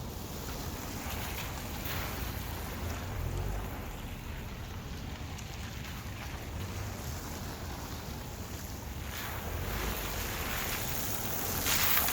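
Steady road noise of a car driving on a wet road: tire hiss and spray over a low hum from Cooper Road Control Touring all-season tires, the hiss swelling about ten seconds in and again near the end. The hum is loudest at the driver's side front and persisted after a new wheel bearing, so the owner is starting to think it is just the tires.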